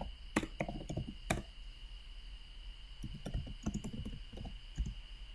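Typing on a computer keyboard: light, irregular key clicks. A faint steady high-pitched tone runs underneath.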